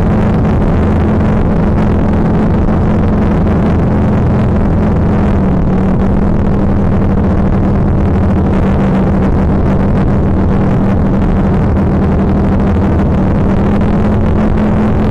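Loud, steady low drone with a rough hiss over it, unbroken throughout; its main low tone drops slightly in pitch about five seconds in and rises back near the end.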